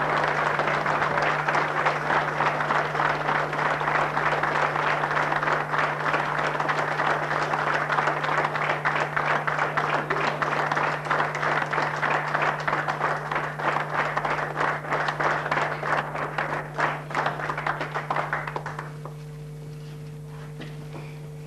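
A hall audience applauding, a long, dense round of clapping that dies away about 19 seconds in.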